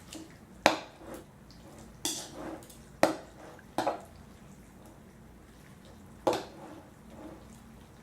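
Eating utensils knocking and clinking against dishes, about five sharp clicks spread over the first six or so seconds.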